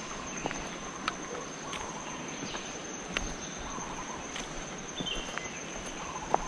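Forest ambience: an insect's steady high-pitched drone over a continuous hiss, with footsteps on a path clicking about once a second and a few short bird chirps.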